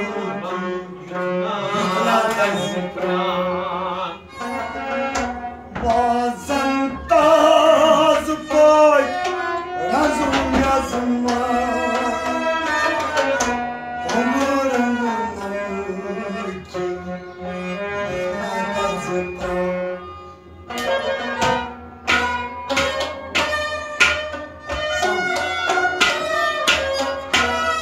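A Kashmiri kalam, a Sufi devotional song: a singer's wavering voice and held instrumental notes over tabla. The tabla strokes come thicker and faster in the last several seconds.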